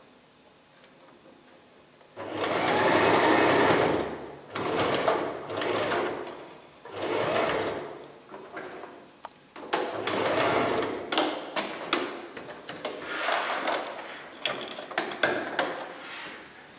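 Domestic electric sewing machine stitching in several short runs, starting about two seconds in and stopping and restarting a few times as the fabric is guided under the presser foot.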